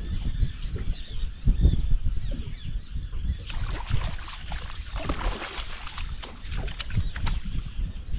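Wind buffeting the microphone in uneven gusts, with birds calling in the first couple of seconds. Dense crackling noise follows from about halfway through until near the end.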